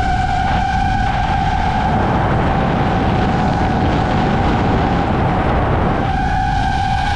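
DJI FPV drone's motors and propellers whining at a steady pitch over heavy wind rush. From about one to six seconds in, the whine blurs into the rushing noise, then comes back clear and steady.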